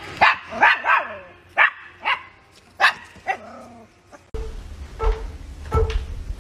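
A small dog barking sharply and repeatedly, about seven barks over four seconds. The barking then gives way abruptly to a steady low hum with a faint regular pulse.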